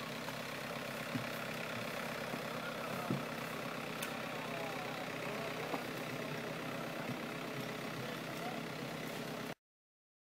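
An engine idling steadily, with a few faint clicks over it, cutting off suddenly near the end.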